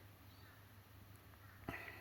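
Near silence: room tone with a steady low hum, and a single sharp click near the end.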